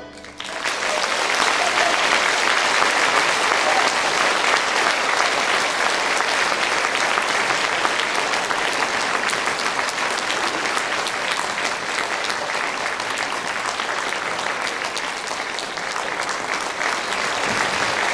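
Concert hall audience applauding: the clapping rises within the first second after the suona solo's final note ends, then holds as a dense, steady ovation.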